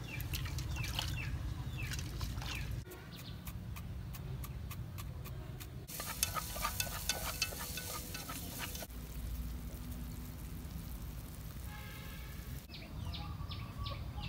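A run of short outdoor cooking sounds over a low rumble: birds chirping, then a series of sharp clicks, then a stretch of crackling sizzle from food frying in a pot as it is stirred, and birds chirping again near the end.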